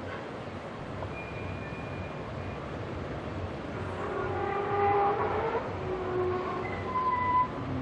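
Steady outdoor background din with scattered short tones, growing busier and louder from about four seconds in.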